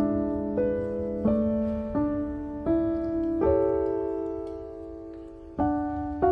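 Slow solo piano music, notes and chords struck about once or twice a second, with one chord left ringing and fading away for about two seconds past the middle.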